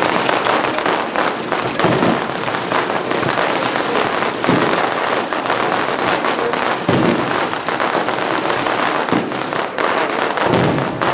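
Fireworks going off in a dense, continuous crackle, with many sharp pops overlapping one another.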